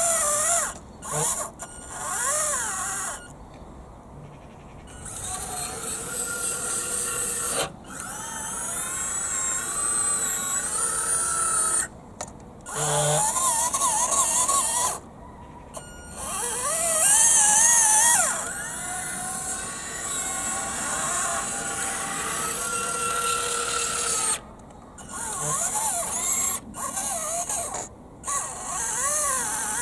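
The small electric gear motors of a radio-controlled toy excavator's DIY screw-driven linear actuators whine in a series of runs of a few seconds each, broken by short pauses. The pitch wavers up and down as the boom, dipper arm and bucket travel out to their limits and back.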